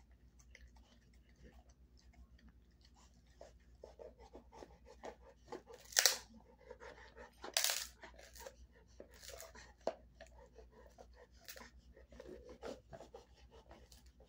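A dog chewing and gnawing a dried beef cheek roll, making irregular crunching and tearing sounds. Two much louder crunches come near the middle.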